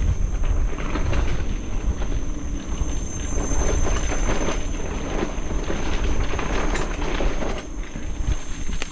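Wind buffeting the microphone and tyre noise from a bicycle rolling along a trail, steady and loud, with a steady high-pitched drone of forest insects behind it.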